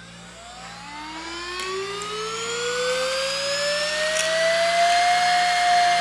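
Baseus A2 handheld cordless car vacuum's motor spinning up after being switched on: a high whine that climbs in pitch and grows louder over the first five seconds, then holds steady at full speed with a rush of airflow.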